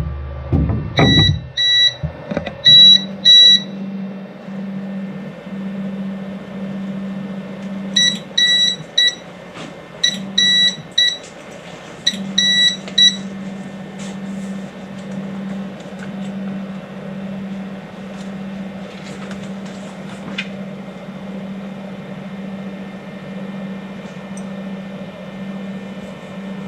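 Qidi X-Max 3D printer running fast bed leveling: its stepper motors give a steady low hum that pauses briefly near the middle, and short high beeps sound in quick groups during the first half.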